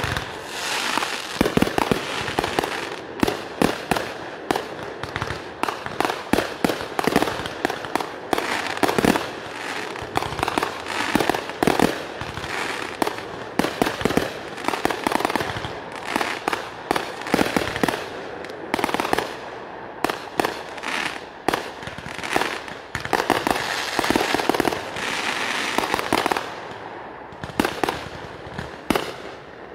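Fireworks display going off in quick succession: many sharp bangs with crackling between them, without a pause.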